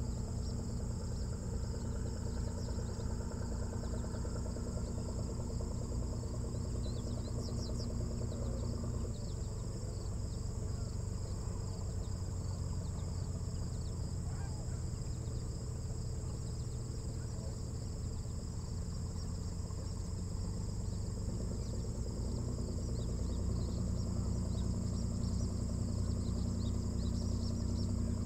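Steady insect chorus, a high shrill buzz, over a low steady mechanical hum that grows a little louder near the end.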